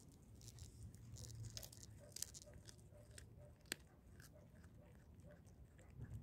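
Domestic tabby cat chewing and biting a scrap of raw meat: a run of faint, irregular wet crunches, with one sharper click a little before four seconds in.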